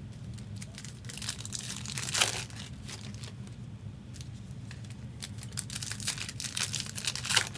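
Plastic wrappers of trading card packs being torn open and crinkled: one long rip about two seconds in, then a run of crinkling and ripping ending in a sharp tear near the end, over a steady low hum.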